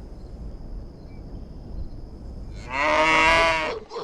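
Cattle mooing: one long moo begins near the end, after a stretch of low background rumble.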